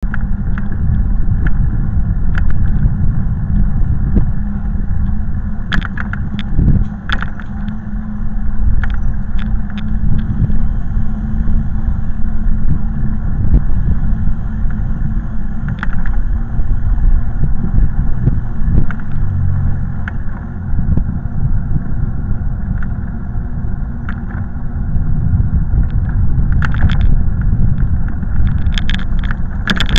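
Loud, steady low rumble of wind and road noise on the microphone of a moving vehicle-mounted camera, with scattered short clicks and rattles.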